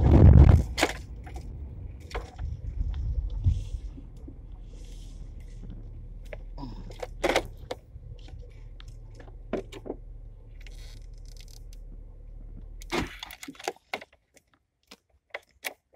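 Car cabin noise: a steady low rumble from the moving car, with a heavy thump at the start and scattered clicks and small rattles throughout. About three-quarters of the way through, the rumble cuts off suddenly, leaving only a few faint clicks.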